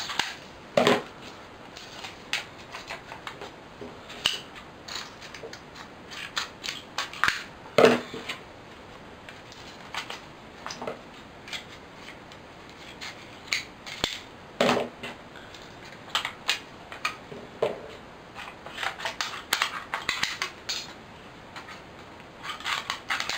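Sturdy scissors cutting up a thin aluminium drinks can: irregular crisp snips of the metal, with a few louder knocks.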